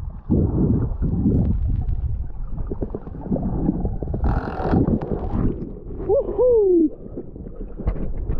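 Muffled underwater rumbling and knocking of water against a submerged action camera, then a brief splash as it breaks the surface about four and a half seconds in. Near the end a man in the water lets out a short whoop that rises and then falls in pitch.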